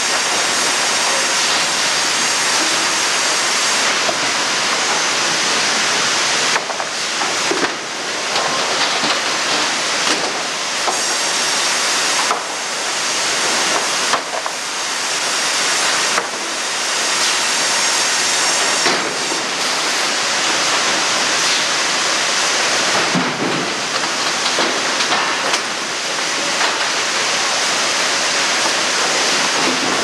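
Sawmill machinery running in a loud, steady din, with chain conveyors and rollers moving logs and cants. The noise is strongest in the upper range and dips briefly every few seconds.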